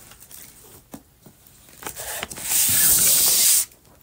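A loud, even hiss lasting just over a second, starting about two and a half seconds in and cutting off suddenly, after a few faint rustling and handling noises.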